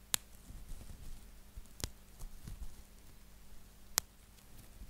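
Bubble wrap squeezed by hand close to a microphone: three sharp bubble pops, one just after the start, one a little under two seconds in and one about four seconds in, with soft plastic crinkling between them.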